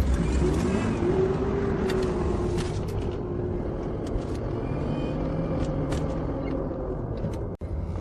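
Off-road vehicle engine running under changing throttle, its pitch rising and falling, with scattered knocks and rattles. The sound cuts out briefly near the end.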